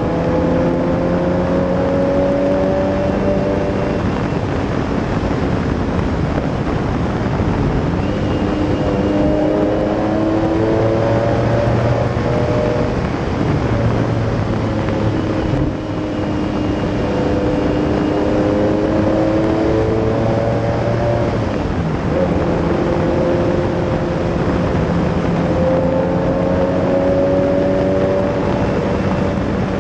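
Lamborghini Diablo SE30's 5.7-litre V12 pulling under way, heard from just above the engine cover over road and wind noise. Its note climbs and falls again several times, with a brief drop in level about halfway through.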